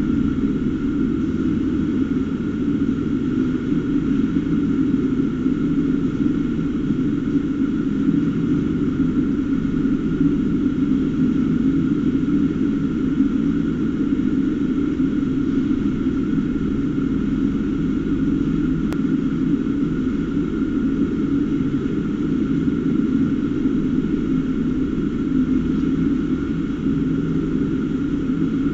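Steady mechanical drone, unchanging throughout, with a low rumbling hum and a faint high steady tone above it; a single faint click about two-thirds of the way through.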